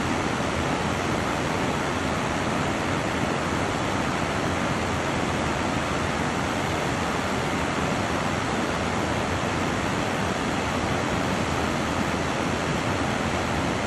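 Water pouring over a low river weir: a steady, even rush of white water.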